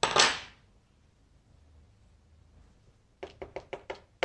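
A short metallic clatter as tweezers are set down on a wooden tabletop. Near the end, a quick run of light knocks, about six a second, as small metal lock parts are tapped and handled against a wooden pin tray.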